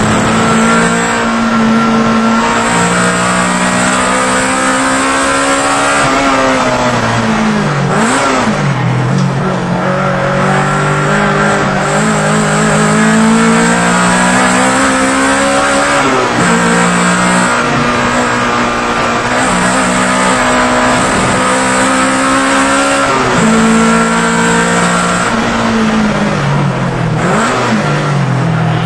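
Honda EK Civic race car's four-cylinder engine heard from inside the cabin at race pace. It revs up steadily through the gears, then drops in pitch, with quick down-and-up swings in the engine note about eight seconds in and again near the end.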